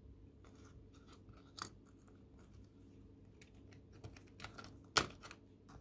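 Light plastic clicks and taps as the opened SD card shell halves and the card's bare circuit board are handled and set down, with a sharper click about a second and a half in and the loudest one about five seconds in. A faint low hum runs underneath.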